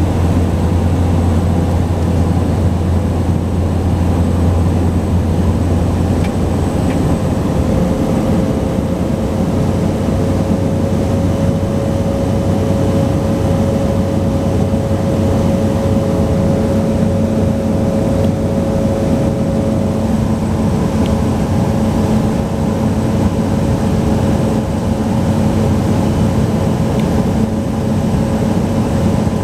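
Cabin noise of a Cessna 208 Caravan's single PT6A turboprop engine and propeller on final approach: a loud, steady drone. Its low hum changes about six seconds in, and a steady higher whine comes in.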